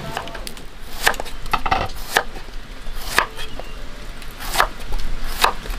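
Food being chopped with a knife: sharp single strikes at an uneven pace of about one a second, a few coming close together.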